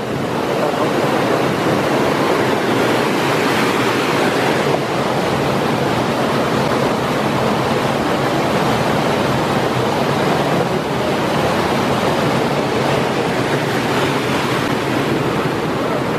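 Rushing water of a rocky mountain stream and its small waterfalls, a loud, steady, even rush.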